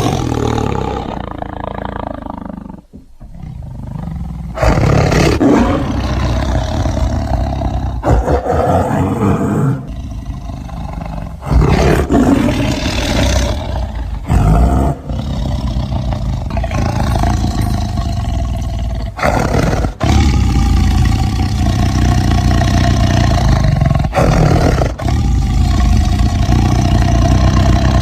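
Tiger roaring: a run of loud roars, one after another, with abrupt breaks every few seconds.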